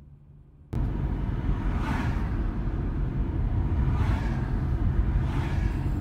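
Road and engine noise inside a moving car's cabin: a steady low rumble that cuts in suddenly, loud, under a second in, with three brief swishes of passing vehicles.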